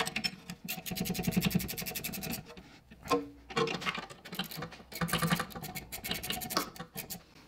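Ratcheting wrench clicking rapidly as the rear brake caliper bolts are run in and tightened. There are two main runs of clicks with a short pause between them.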